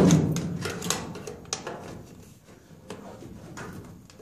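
Sheet-metal ductwork being worked into place: a loud clank at the start, then scattered lighter taps and rattles of metal pieces being handled.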